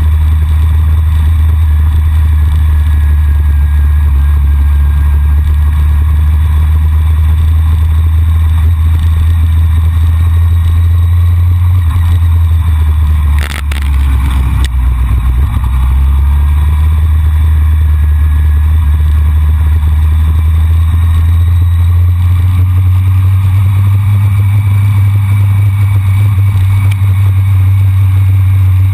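Motorcycle riding steadily at speed, its engine drone mixed with heavy wind rush on a bike-mounted camera's microphone. About halfway through the level briefly dips, with a short sharp click.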